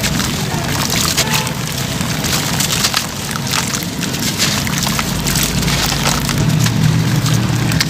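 Wet sand-cement clumps with embedded shell or gravel bits being crumbled by hand into a basin of water: a dense, continuous run of gritty crackles and splashes as the pieces break apart and drop in.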